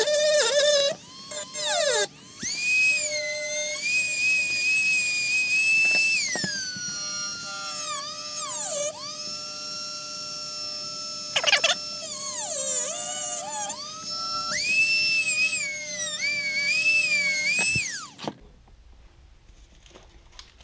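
Dremel rotary tool with a cut-off wheel cutting into a die-cast metal model truck cab: a loud high whine that dips and recovers in pitch again and again as the wheel bites into the metal, over the steady tone of the motor. It stops about 18 seconds in.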